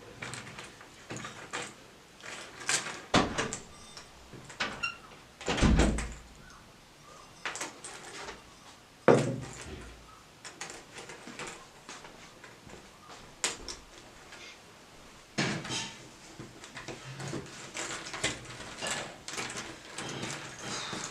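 Household handling sounds: a run of light clicks, taps and knocks of objects being moved and set down, with a few heavier thumps, one low and dull about six seconds in.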